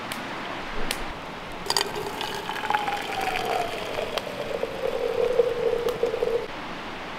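Water running from a samovar's tap into a glass teapot over loose tea leaves, with a tone that slides down in pitch as the pot fills; the stream stops about six and a half seconds in. A few light clicks come before the pour starts, under two seconds in.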